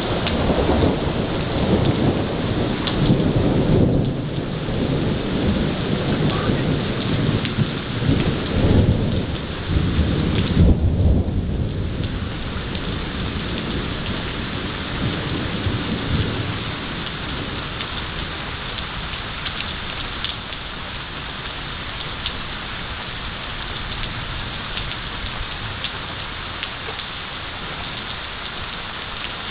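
Heavy thunderstorm: steady rain throughout, with thunder rumbling through the first half, loudest about ten seconds in, then dying away to leave the rain alone.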